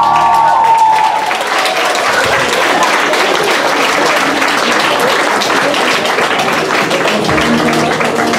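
An audience clapping, with the last held notes of a sung song dying away about a second in. Music starts up again near the end.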